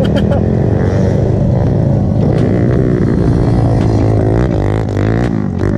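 Dirt bike engines running on a motocross track, revving with the pitch rising and falling as the riders work the throttle.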